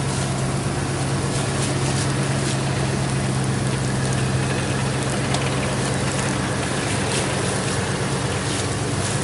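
Dodge Ram 1500 pickup's engine running steadily through its Borla cat-back exhaust, a low hum at an even pitch and level.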